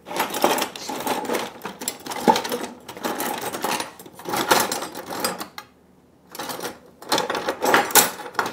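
Rummaging through a kitchen drawer: metal kitchenware clattering and rattling in irregular bursts, with a short lull a little past halfway.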